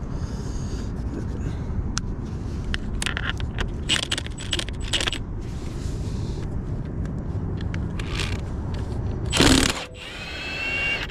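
Metal clinks and scrapes of a socket and lug nut being worked off a wheel stud, over a steady low background, with a louder knock about nine and a half seconds in and a short whine near the end. The lug nut keeps sticking on the stud, its threads stripped from being overtightened.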